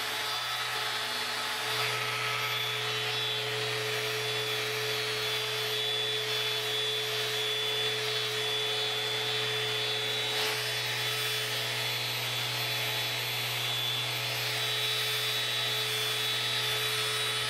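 Electric orbital sander with a dust-extraction hose running steadily against a weathered teak window frame, a constant motor hum and whine over the hiss of the abrasive on the wood.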